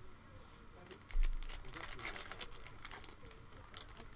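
Foil wrapper of a Panini Prizm football card pack being torn open and crinkled by hand, in quick crackles. A dull low thump about a second in.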